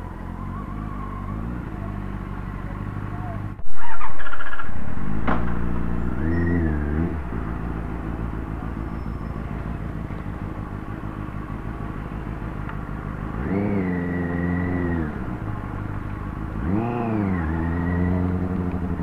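Motorcycle engine running steadily, with three throttle blips where the pitch rises, holds briefly and falls back, and a sudden loud burst of sound about three and a half seconds in that fades over a couple of seconds.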